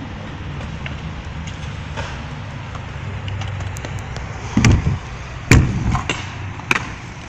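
Kick scooter rolling on concrete with a steady low rumble and scattered light clicks, then three loud knocks about four and a half, five and a half and nearly seven seconds in as it passes close by.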